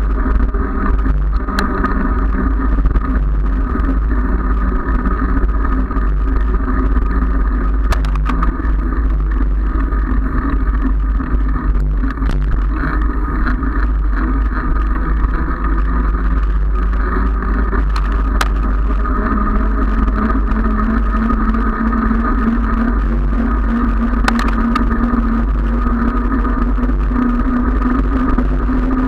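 Wind rumble on a handlebar-mounted camera's microphone while riding, over a steady hum from the moving vehicle and the road. About two-thirds of the way through the hum settles into a clearer, steady low tone.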